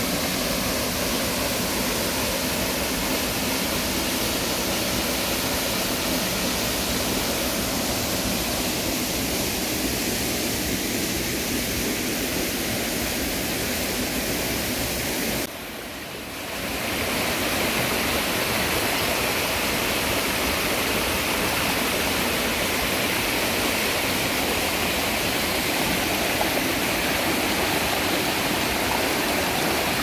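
Mountain stream rushing over rocks and pebbles: a steady, loud rush of water that dips briefly about halfway through and then carries on.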